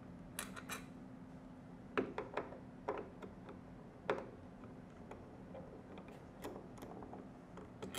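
Hand screwdriver backing screws out of a metal entrance-lock back plate: scattered light clicks and ticks as the tip works in the screw heads, over a faint steady hum.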